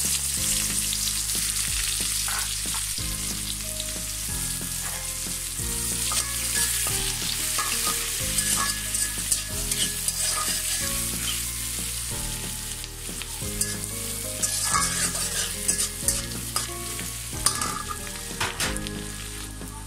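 Chopped onions sizzling in hot oil in a steel wok, stirred so that the spatula scrapes and clicks against the pan now and then.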